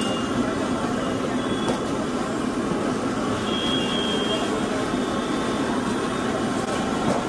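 Busy street-market ambience: steady traffic noise mixed with indistinct background chatter.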